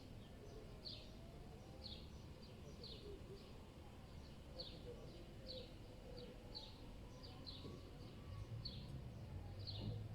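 A small bird chirping over and over, short high downward-sliding notes about once a second, over a faint low city rumble.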